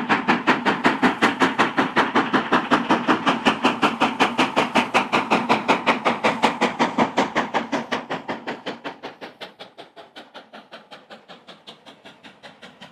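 Steam locomotive chuffing, with rapid, even exhaust beats that fade away from about eight seconds in.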